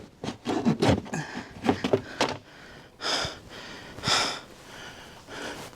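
A man breathing hard and spitting, in short irregular bursts with two strong hissy blasts near the middle, after accidentally swallowing antifreeze.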